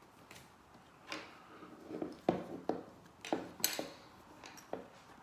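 Plastic pry tools clicking and tapping against an iPod Classic's metal case and a wooden tabletop while the case is being pried open: a quick string of about eight sharp clicks and knocks.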